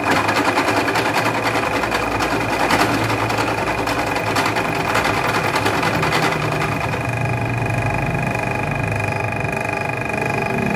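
Small bench milling machine running steadily while its cutter cuts valve recesses into the crown of a 54 mm Kawasaki KC piston, with a harsh rasping of the cut for the first six seconds or so. After that only the motor's steady hum remains.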